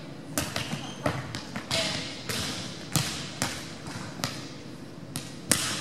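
Volleyballs being hit and bouncing on a hardwood gym floor: about ten sharp, unevenly spaced slaps and thuds, each echoing in the large hall.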